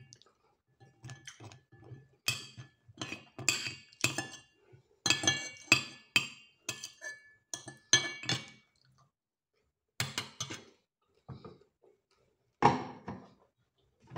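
Metal spoon and fork clinking and scraping against a plate while eating rice: many short, sharp clinks at uneven intervals, some briefly ringing, with a pause about nine seconds in and one louder knock near the end.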